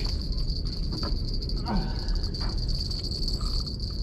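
Crickets trilling, one steady high-pitched chorus, over a low steady rumble.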